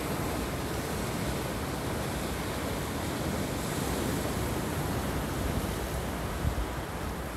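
Sea surf breaking and washing around shoreline rocks: a steady, even rush of waves.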